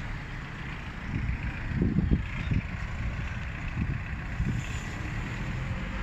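Wind buffeting the microphone in irregular low gusts over a steady outdoor hum, while the doors of a Schindler parking-lot lift slide open.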